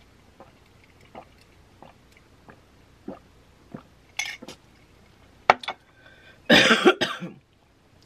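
Quiet sips and swallows through a straw from a glass of iced drink, with small mouth clicks, then a loud cough in two quick parts near the end.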